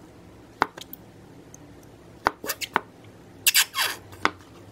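Glue squirting from a plastic squeeze bottle into a glass bowl: a handful of short sharp clicks and squelches, the longest about three and a half seconds in, falling in pitch.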